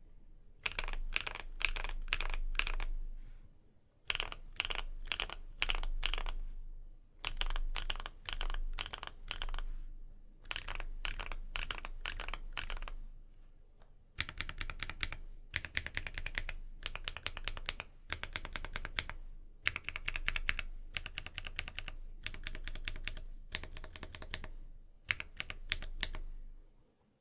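Typing on a MonsGeek M1 aluminium mechanical keyboard fitted with Kikimeow Vitality tactile switches and PBT cherry-profile keycaps, in bursts of a few seconds with short pauses between.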